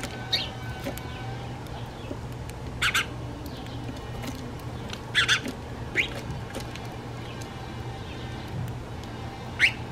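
House sparrows chirping: about half a dozen short, sharp chirps a second or more apart, the loudest near the end, over a steady low hum.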